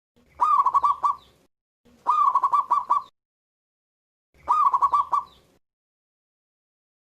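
Zebra dove (perkutut) cooing: three calls about two seconds apart. Each is a rising opening note followed by a quick run of short, even coos.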